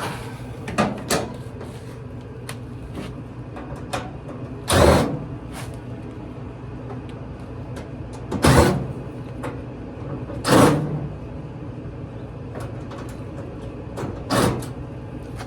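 Sheet-metal dryer cabinet panels being pried and shifted during teardown: a few loud scraping clunks several seconds apart over a low steady hum.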